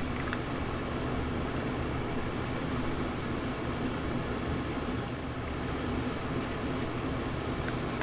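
Steady hiss with a low hum, and a few faint clicks from the plastic and metal parts of a handheld radio being handled and fitted together.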